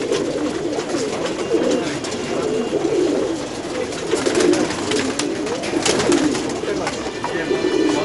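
A flock of domestic pigeons cooing together, many low warbling coos overlapping without a break, with scattered sharp taps and clicks that are thickest in the middle.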